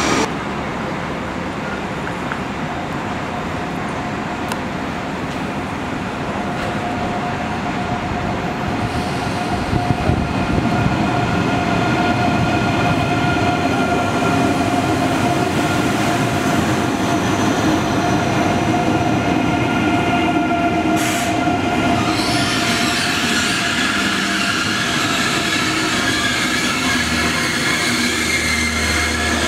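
ICE 3 high-speed electric train running into a station platform and slowing: a steady rumble of wheels on rail that grows louder about a third of the way in, with several high whining tones joining about two-thirds of the way through.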